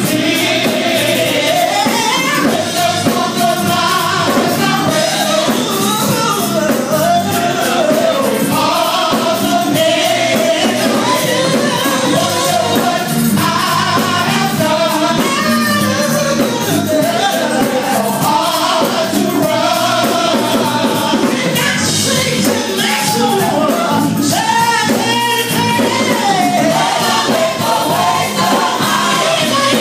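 Loud live gospel praise music: a lead singer on a microphone over a band, with many voices singing along.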